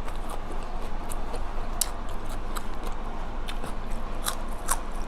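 Close-up chewing of a mouthful of spicy red ant egg salad, with scattered short, crisp clicks as the food is bitten and chewed.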